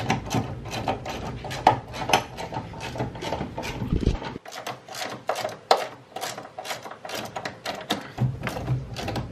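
Hand-tool work on strut-tower top-mount nuts: a ratchet and socket clicking, with irregular small metallic clicks and knocks as the nuts are undone and handled, and a dull thump about four seconds in.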